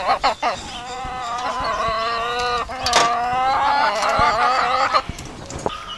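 A hen vocalizing in two long, drawn-out, wavering calls, the second starting about three seconds in.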